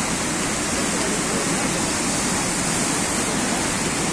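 Fast-flowing floodwater rushing, a loud, steady noise without a break.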